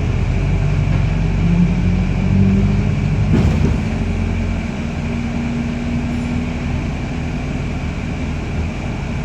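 Diesel-electric hybrid New Routemaster bus running under way, its four-cylinder diesel engine heard from the upper rear deck: the engine note rises over the first couple of seconds, a short knock sounds about three seconds in, then it settles to a steady drone.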